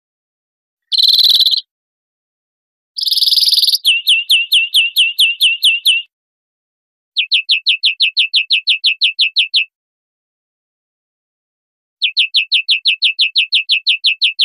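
European greenfinch song: two long nasal wheezes about one and three seconds in, then three bursts of rapid repeated chirping notes, about six to seven a second, with gaps of silence between the bursts.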